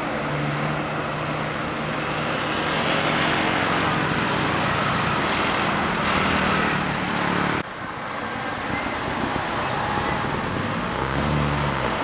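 Tour bus engine running with road traffic noise as the bus pulls away. The sound breaks off suddenly about two-thirds of the way through, and near the end another bus engine comes up.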